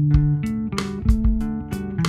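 Background music: guitar and bass over a steady drum beat.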